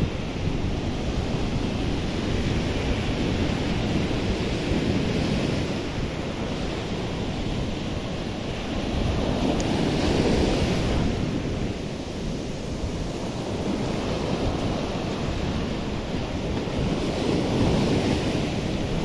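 Sea surf breaking and washing up a sandy beach, the rush of water rising and falling as each wave comes in, with wind rumbling on the microphone.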